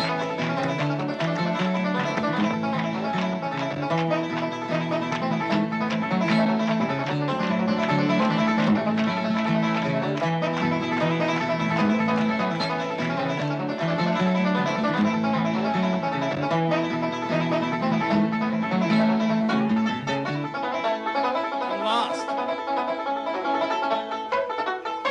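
Bluegrass banjo and guitar music, the picked strings running in a repeating pattern; the lower notes drop out about twenty seconds in.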